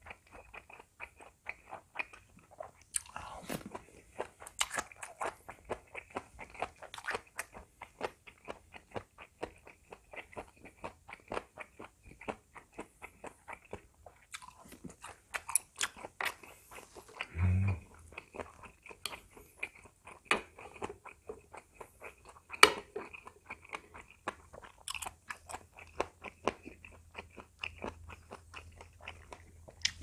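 A person chewing crunchy food close to the microphone: rapid, regular crunching and mouth clicks several times a second, with a few louder crunches. A single soft low thump sounds about halfway through.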